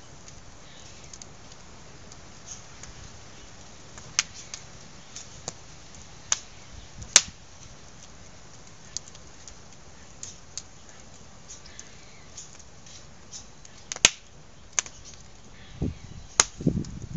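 Wood fire in a steel fire ring crackling, with irregular sharp pops, the loudest two about seven and fourteen seconds in. A couple of low thumps near the end.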